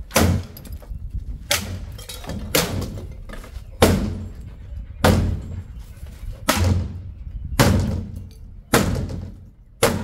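Hammer blows on the steel rear body of a jeep, knocking the welded-on rear section apart: about nine heavy strikes, roughly one every second, each with a short ring.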